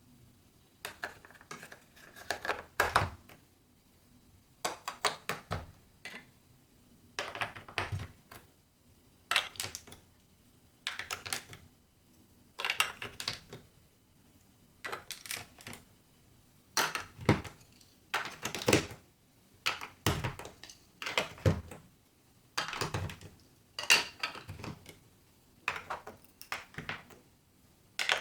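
Marbles clattering and rolling down a building-block marble run: bursts of rapid clicks and knocks about a second long, coming every second or two, with short quiet gaps between.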